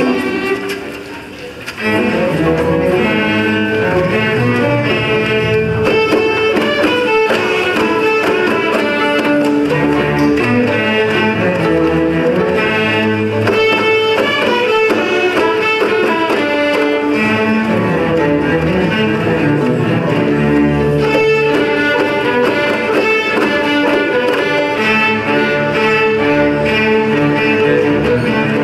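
Student string orchestra of violins, cellos and double basses playing a piece together. After a brief soft moment near the start, the full ensemble comes back in about two seconds in.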